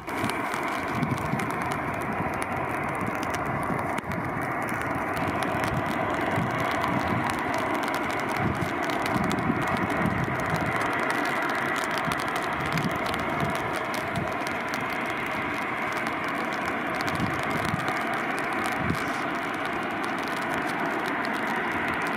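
Airbus A321's two jet engines at takeoff power during its takeoff roll: a steady, broad roar with a crackling edge.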